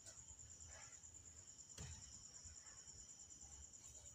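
Near silence: room tone with a faint, steady, high-pitched pulsing trill and a low hum.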